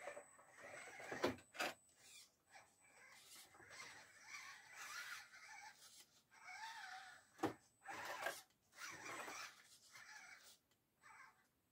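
RGT Bowler 1/10 RC crawler's electric drivetrain whirring in short throttle bursts as it crawls over wooden boards, with a few sharp knocks of the truck against the wood.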